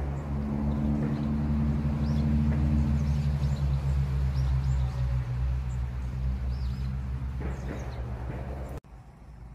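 A steady low engine-like hum that swells over the first few seconds and slowly fades, with small birds chirping faintly now and then. It all cuts off abruptly near the end.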